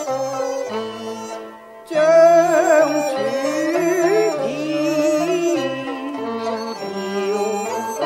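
Cantonese opera accompaniment music: an instrumental ensemble plays a melody over a steady low note pattern. It dips briefly just before two seconds in, then comes back louder with wavering, sliding melody lines.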